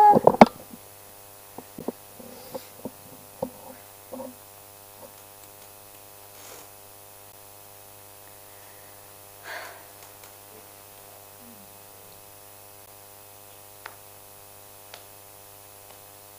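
A stand-mounted microphone being bumped and handled by a toddler: a couple of loud knocks right at the start, then scattered small clicks over the next few seconds. A steady electrical mains hum from the sound system runs underneath.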